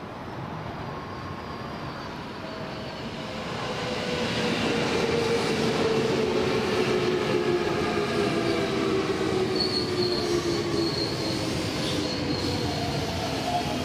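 Keikyu electric train running along the platform. It gets louder about four seconds in, and its motors give a whine made of several tones that fall slowly in pitch. A high squeal from the wheels or brakes comes in about ten seconds in.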